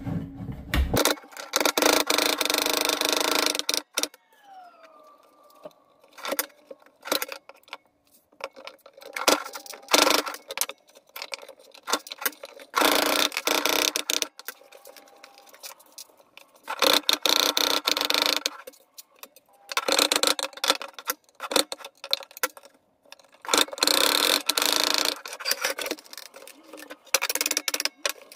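Small electric power tool run in about seven short bursts of one to three seconds with pauses between, its whine falling away as it spins down after the first long burst.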